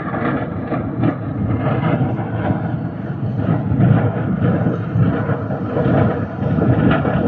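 Large fire roaring, a dense steady rumble with crackling through it.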